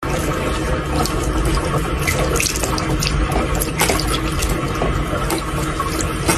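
Water running steadily from a bathroom tap into a sink, splashing off the head of a cat drinking from the stream, with a few sharper splashes.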